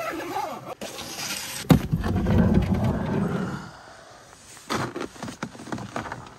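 A sharp clunk about a second and a half in, then a second and a half of loud low rumbling. Near the end come several footsteps crunching in packed snow.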